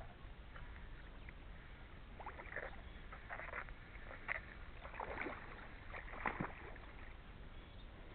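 Small water splashes and lapping at a lake's edge, in short irregular bursts that are loudest about two thirds of the way through.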